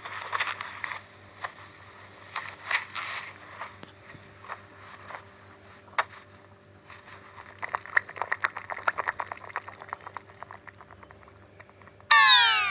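Stomach growling: irregular gurgles and crackling bubbling, with a fast run of crackles in the middle, ending in a loud growl that falls in pitch.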